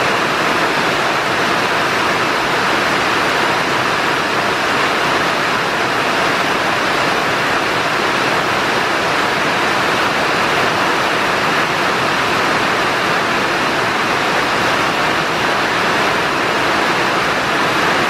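Steady, even rushing noise that does not change, with no distinct events in it.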